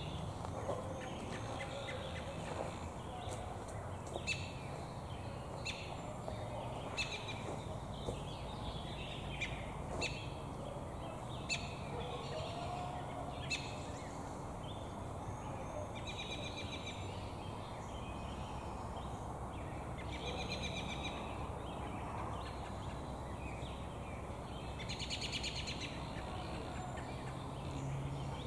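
American robin giving short, sharp chirps every second or two while holding food in its beak. In the second half, three rapid bird trills about a second long each, over a steady low background rumble.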